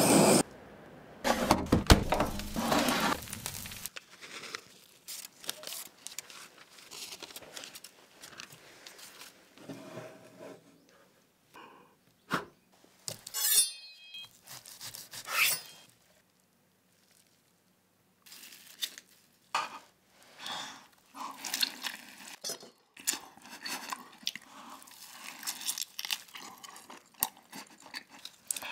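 Close-up eating sounds: a loud hiss for the first few seconds, then quiet handling clicks and crackles, then repeated bites and chewing of a gold-leaf-covered tomahawk steak in the second half.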